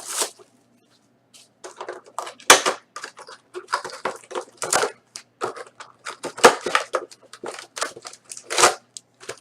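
Packaging on a hobby box of trading cards being torn open: repeated crinkling and ripping of plastic wrap and cardboard, starting about a second and a half in and going on in irregular rips until near the end.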